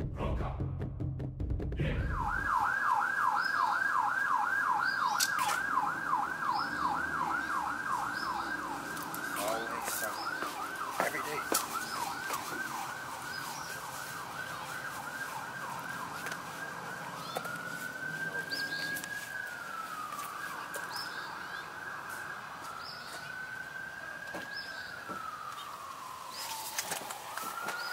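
Electronic emergency-vehicle siren in a fast yelp, sweeping rapidly up and down for about fifteen seconds. It then switches to a slower wail that rises and falls a few times before fading near the end.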